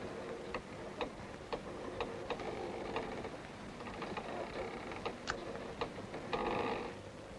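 Even ticking, about two ticks a second, like a clock, with a short creaking, groaning sound near the end.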